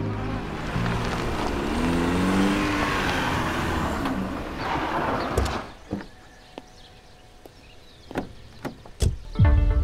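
A car pulls up and its engine runs, then cuts off about six seconds in. A few sharp clicks follow as the car door is opened, and a heavy door thump comes near the end.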